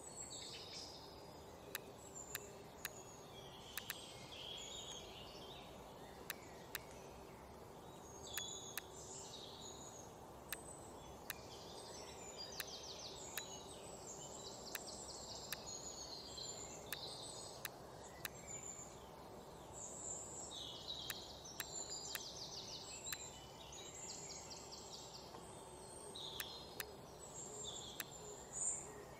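Small birds chirping and singing fast trills, over a faint steady hum. Sharp mouse clicks come every second or two.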